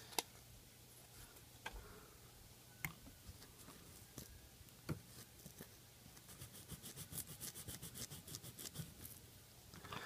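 An alcohol wipe scrubbed back and forth over the circuit board's desoldered dock-connector pads to clean them: a faint, fast run of rubbing strokes, about five a second, from about six seconds in for some three seconds, after a few scattered light taps.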